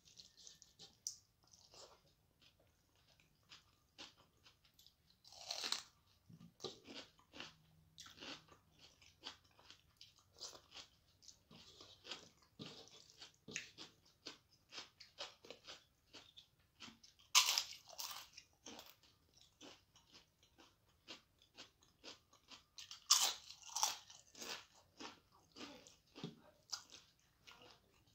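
Close-miked eating: a person chewing mouthfuls of rice and biting into crisp fried papad, with small crackles throughout and three louder crunches spread across it.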